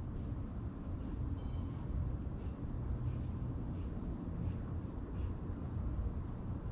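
Steady high-pitched trilling of insects, likely crickets, running on without a break over a low, even rumble.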